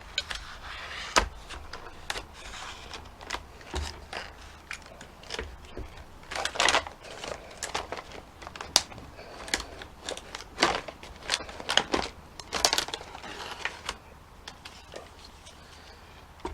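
Stiff plastic blister packaging being cut with a knife and pried apart by hand, giving irregular crackles and sharp clicks.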